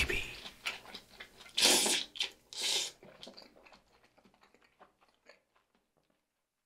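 Crisp crunching bites of food, several short crunches with the loudest two about two seconds and nearly three seconds in, then a few small clicks dying away to silence.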